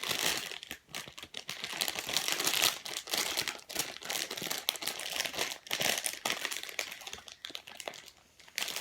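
Packaging crinkling and rustling as a squishy toy is handled and unwrapped, in irregular crackly bursts that die down briefly near the end.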